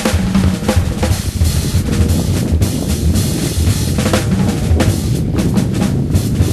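Music with steady, driving drumming: bass drum and sharp snare-like strikes.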